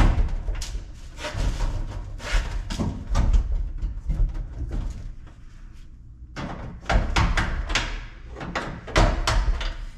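Hands working at a GE Spacemaker dryer's sheet-metal front while its screws are fitted: scraping, knocking and rattling in two busy stretches, with a quieter lull in the middle.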